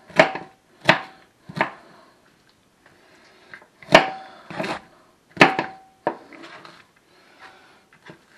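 Chef's knife chopping cabbage on a cutting board: sharp knocks of the blade striking the board, three in quick succession at the start, then four more after a short pause. Several knocks leave a brief ringing tone.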